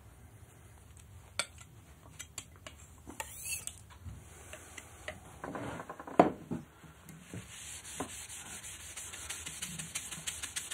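Palette knife scraping and rubbing ultramarine oil paint off a glass muller, with scattered light clicks and a short squeak about three and a half seconds in. Over the last few seconds the scraping turns into quick, regular strokes that grow louder.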